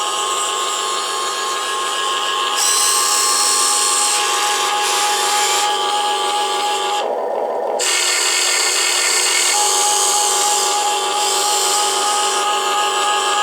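Huina 1580 full-metal RC excavator's electric motors whining as its arm, bucket and turntable are worked. The sound changes every second or two as different functions start and stop.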